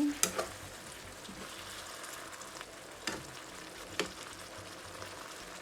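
Sauce sizzling steadily in a pan on a gas stove after a splash of water has gone in. A few sharp knocks sound near the start, about three seconds in and about a second later.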